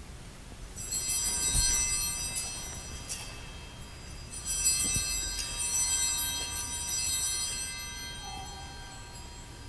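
Altar bells (a hand-held cluster of sanctus bells) shaken in two rounds of ringing, about a second in and again about four and a half seconds in, each fading out over a couple of seconds. In the Tridentine Mass this ringing marks the elevation of the Host at the consecration.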